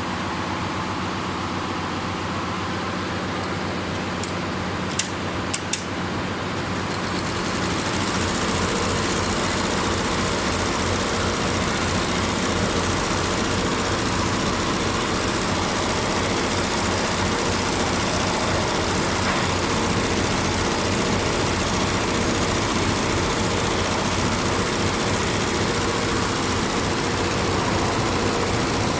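Boring machine running with a steady engine-like drone. A few sharp clicks come about five to six seconds in, and the machine grows louder and hissier about seven seconds in, then runs on steadily.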